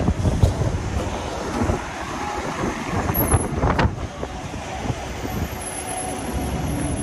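Street traffic noise with wind buffeting the microphone, gusty over the first couple of seconds and then steadier.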